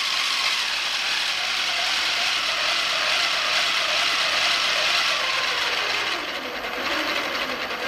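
A 775 DC motor driving a 3D-printed flexible-impeller water pump through a 3D-printed planetary gearbox, running with a steady gear whir. A faint whine slowly falls in pitch, and the sound drops a little about six seconds in.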